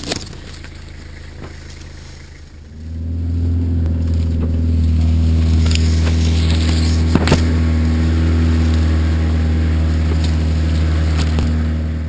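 Vehicle engine running at a steady speed, a loud, even low drone that swells up about three seconds in, with a few sharp knocks and tall grass brushing against the car's body.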